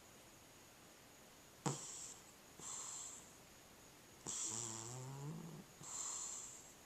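Cat snoring in its sleep. After a quiet stretch of about a second and a half come four rasping breaths. The first starts with a sharp click, and the third is a longer snore that rises in pitch.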